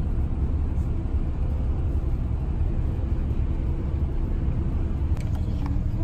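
Steady low rumble of an intercity bus cruising on a highway, heard from inside the passenger cabin: engine and road noise. A couple of light clicks near the end.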